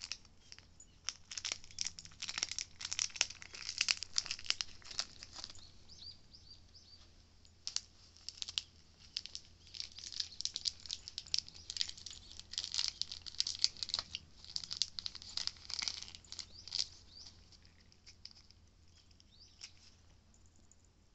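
Crumpled foil packet crinkling and crackling as a cat bites, licks and paws at it, in dense rapid crackles that thin out over the last few seconds.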